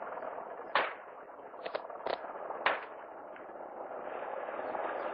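Gunshots during a street shootout: a sharp report a little under a second in, two weaker ones near the middle, another loud report just under three seconds in and a faint one after it, over a steady hiss.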